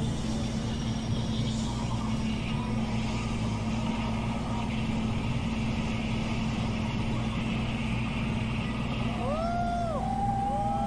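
Steady rumbling noise of a large crowd at a big-screen screening, with a low hum under it. Near the end a few short tones rise and fall as the crowd raises their arms.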